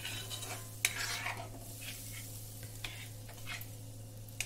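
A steel spatula stirring moong dal cooking down in milk in a black kadhai: wet scraping and swishing strokes against the pan, with a sharp clink about a second in, over a faint sizzle.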